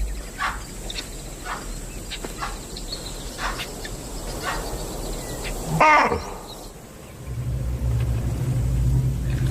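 Wild animal alarm calls: a series of short calls about once a second, then one louder call with a falling pitch about six seconds in. A low steady drone of background music comes in near the end.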